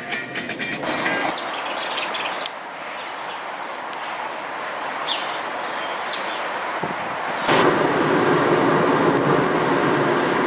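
A couple of seconds of clicking, then a quieter outdoor background with a few short bird chirps. About seven and a half seconds in, it cuts to the louder steady road noise of a car driving on a wet road, heard from inside the car.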